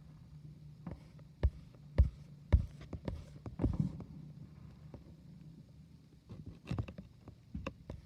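Fireworks going off: a string of irregular booms and pops, the loudest in the first three seconds, over a low steady hum.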